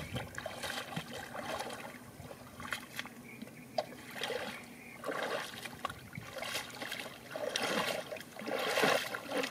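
Shallow river water trickling and lapping around rocks close by, with louder splashy patches a little after the middle and again near the end.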